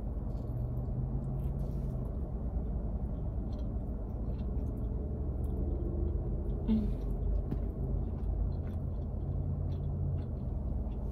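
A person biting into and chewing a burrito, with scattered short wet clicks and crackles of chewing, over a steady low rumble of the car.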